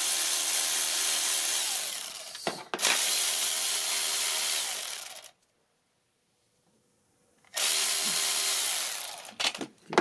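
Cordless electric ratchet running in three bursts of about two seconds each, with a steady motor whine, backing out a fastener at the cylinder head. A few clicks come near the end.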